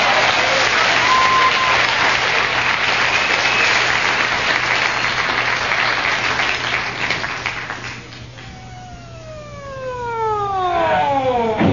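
Audience applause that fades out about eight seconds in, followed by a police siren winding down, one tone falling steadily in pitch over about three seconds.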